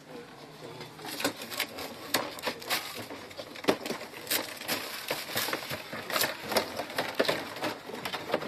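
Irregular taps, knocks and rustles of a cardboard toy box being lifted and handled among other boxed stock.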